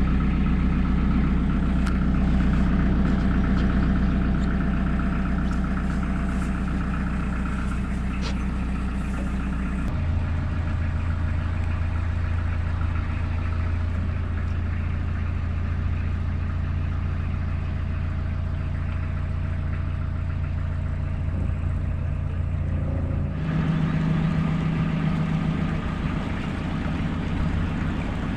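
Narrowboat engine running steadily. The pitch and tone change abruptly about 10 seconds in and again near 23 seconds, as if separate stretches of running are joined together.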